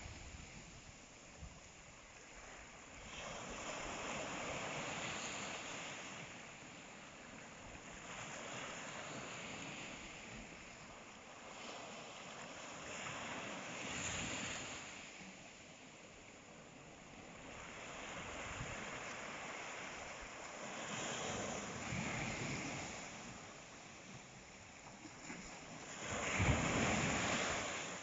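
Sea waves breaking and washing up on the shore, the surf swelling and fading every few seconds, with the loudest wave near the end.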